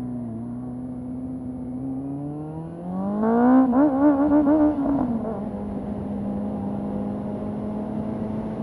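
Honda CB400 inline-four motorcycle engine through IXIL aftermarket exhaust, heard muffled from the rider's helmet mic. It runs steadily at first, then about three seconds in the rider opens the throttle and the note rises and gets louder with a wavering pitch, before dropping to a lower, steady cruising note about two seconds later.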